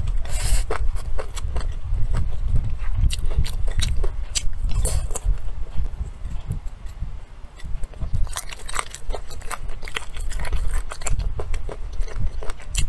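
Close-up chewing and biting of food, with many small crackly clicks over a pulsing low rumble, and a quieter stretch about halfway through.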